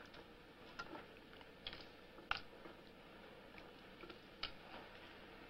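A few faint, scattered clicks over quiet room tone, the sharpest a little over two seconds in.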